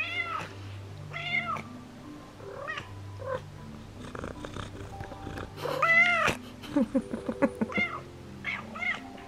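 Domestic tortoiseshell cat meowing again and again, a string of short arching meows with the loudest about six seconds in and a few quick clipped ones right after. Faint background music with steady held notes runs underneath.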